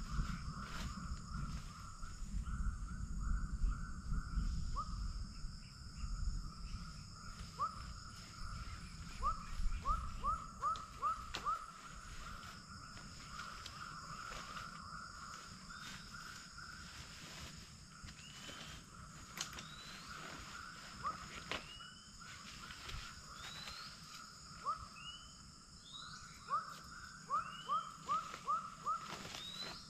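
Rainforest ambience: a steady high insect drone, with runs of short rising chirping calls from a small animal that come in quick series, loudest about a third of the way in and again near the end. Scattered rustles and light knocks of tent fabric and poles being handled are heard, mostly in the first ten seconds.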